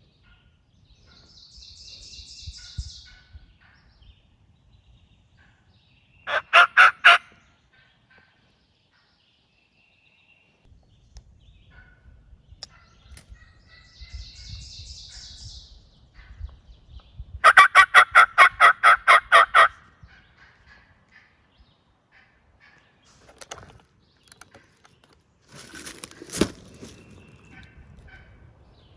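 Turkey yelping in loud, evenly paced runs: a short run of about five yelps, then a longer run of about fifteen later on. A single sharp click comes near the end.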